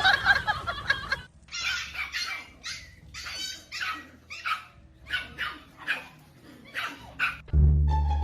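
A dog giving a string of about a dozen short, high-pitched barks, irregularly spaced. Music comes in near the end.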